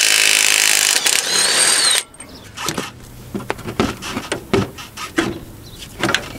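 Impact wrench with a 24 mm socket hammering on a front-suspension bolt, stopping abruptly about two seconds in. Scattered metallic clicks and knocks follow as the loosened parts are handled.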